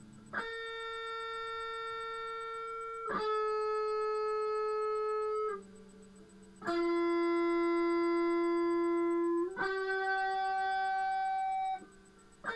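Electric guitar in drop D tuning playing four long, sustained single notes, each ringing about three seconds, with short, softer, lower notes between them.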